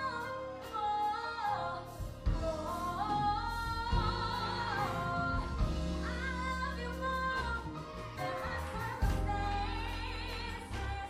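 Gospel song: a solo singer's melody with vibrato over bass and drums.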